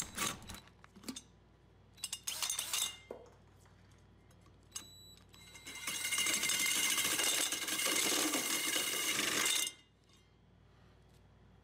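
A drill drives a Milwaukee hole saw through plywood in one steady cut of about four seconds in the second half, with a few high whining tones over the cutting noise. Short knocks and scrapes come before it.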